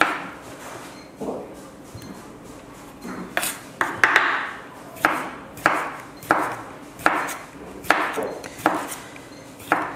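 Kitchen knife slicing red onion and tomato on a wooden cutting board, each cut ending in a sharp knock of the blade on the board. A few scattered cuts at first, then from about three seconds in a steady run of about one to two cuts a second.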